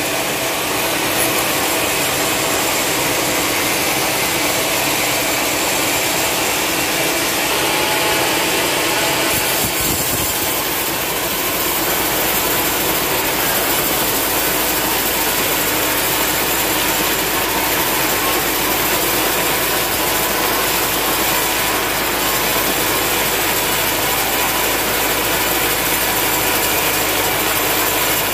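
Sawmill band saw running steadily, its blade ripping lengthwise through a long, dry, hard log carried past on a rail carriage.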